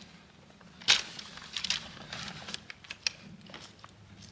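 A few sharp clicks and light knocks, handling noise of objects being moved, the loudest about a second in.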